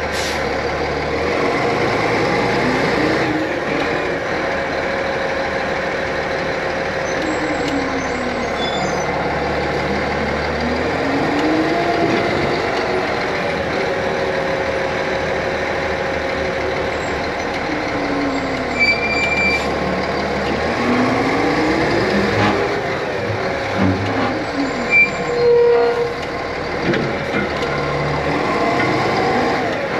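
Fire engine's diesel engine running, its pitch slowly rising and falling several times, with a few short knocks near the end.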